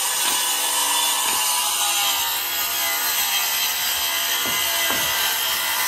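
Handheld circular saw running and cutting through a wood sheathing panel, a steady dense whine and rasp of the blade in the wood.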